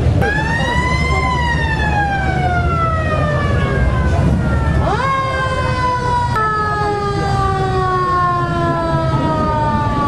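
Mechanical siren on a vintage sheriff's patrol car, winding up twice: each time it rises quickly, then coasts slowly down in pitch. Classic car engines run low underneath.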